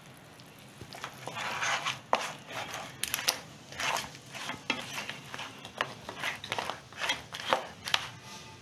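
Wooden spatula stirring ground coconut paste into crab pieces in a nonstick wok: irregular scraping and knocks against the pan and the crab shells, starting about a second in.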